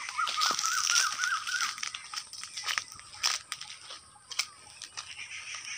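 Footsteps and rustling on dry ground and grass, with scattered sharp clicks. A bird calls in a short run of warbling notes over the first two seconds.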